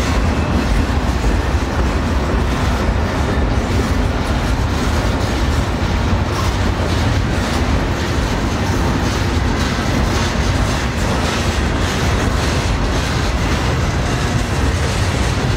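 The rear of a freight train rolling past: empty intermodal well cars and a boxcar, steel wheels on rail with a clickety-clack over the joints.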